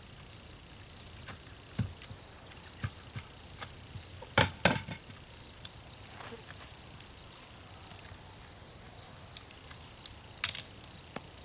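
Steady high-pitched chorus of crickets, with a few sharp metallic clacks from an AR-15 pistol being worked by hand to clear a double feed: a light click about two seconds in, two loud clacks just after the middle, and another near the end.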